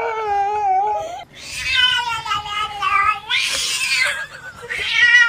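A dog's long, wavering whining call, its way of 'talking', for about the first second, then a cat yowling in a series of long, drawn-out calls that bend up and down, one of them harsher.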